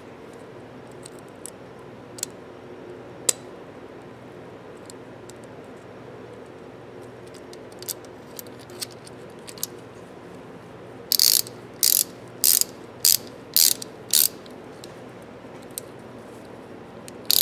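A few faint metal clicks and taps, then a freshly reassembled hand ratchet wrench worked back and forth: six quick bursts of ratchet clicking, about two a second. The pawl is running without grease, metal on metal.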